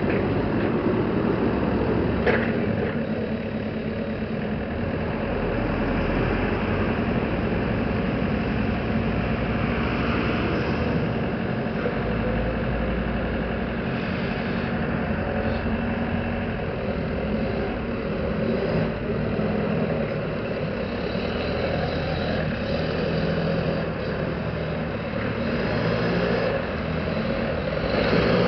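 Toyota 7FDF35 forklift's diesel engine running, its note rising and falling in places as it works. A single sharp knock sounds about two seconds in.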